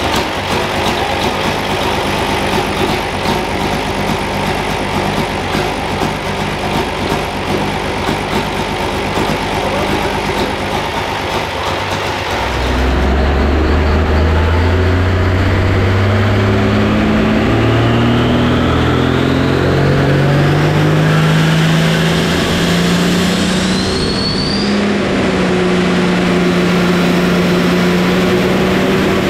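Turbocharged modified pulling-tractor engine running on a dyno. About halfway through it climbs steadily in revs for several seconds, with a rising turbo whistle, then holds at a higher steady speed.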